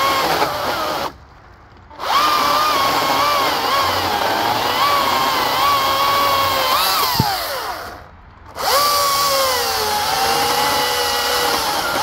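Greenworks Commercial 82CS34 82-volt cordless electric chainsaw (3400 W motor) cutting through a big oak log: a steady motor whine whose pitch sags and wavers as the chain bites under load. The sound drops out briefly twice, the second time after the whine winds down.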